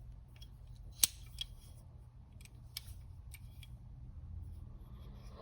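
A few light metallic clicks from a stainless steel multitool being handled, with one sharper click about a second in.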